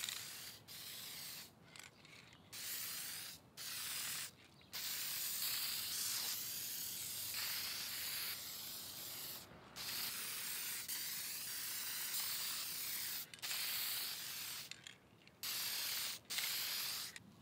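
Aerosol spray can of toner lacquer hissing in a series of passes, some short and one about five seconds long, with brief pauses between them.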